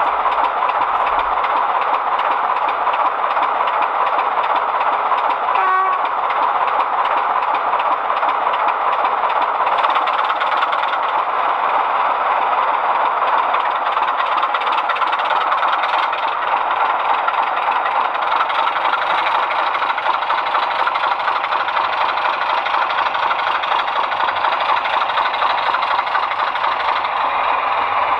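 The sound decoder of a model Heljan Class 25 diesel locomotive playing its recorded diesel engine sound through the model's small on-board speaker as it runs, steady and rather loud. A brief tone sounds about six seconds in.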